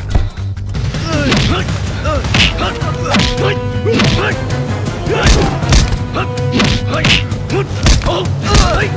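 Film fight soundtrack: a rapid series of punch and kick impacts, the loudest just after the start, with fighters' grunts and shouts over action background music.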